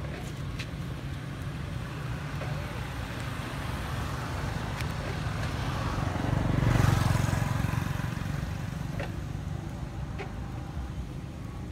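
A motor vehicle passing by, its engine and tyre noise swelling to a peak about seven seconds in and then fading, over a steady low rumble. A few faint clicks.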